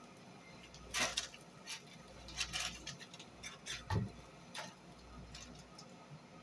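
Scattered light clicks and knocks of cookware and utensils being handled at the stove while chicken is checked, a few irregular taps several seconds apart.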